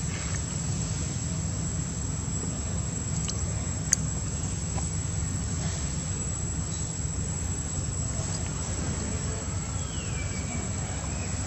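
Outdoor ambience: a steady low rumble with a thin, high insect drone over it. A sharp click about four seconds in, and a short falling whistle near the end.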